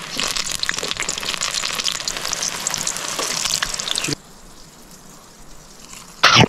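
Battered pale chub deep-frying in hot oil in a wok: a dense, crackling sizzle of bubbling oil that cuts off abruptly about four seconds in. A brief loud burst of noise comes near the end.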